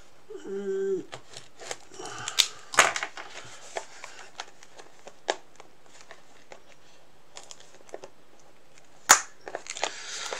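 Plastic shrink wrap being picked at and torn off a card-game box: crinkling and crackling with scattered sharp clicks, and one loud snap about nine seconds in.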